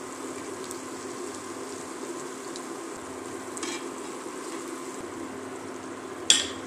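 Oil sizzling steadily as breaded potato balls deep-fry in a steel pan, with a metal spoon scraping briefly in the pan about halfway through and one sharp metallic knock near the end as it strikes the pan.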